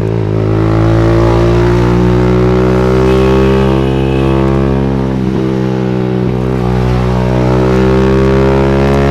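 TVS Wego scooter's single-cylinder carbureted engine running through an Akrapovic slip-on exhaust, held on the throttle at a steady pitch that creeps up over the first few seconds, with a couple of brief dips in the note about halfway through. The engine is running a rich air-fuel mixture.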